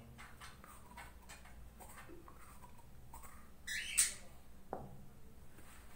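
Faint clicks and scrapes of a piston with newly fitted rings being pushed up and down in its cylinder, checking for a scratching sound from the rings. One short rising squeak comes about four seconds in.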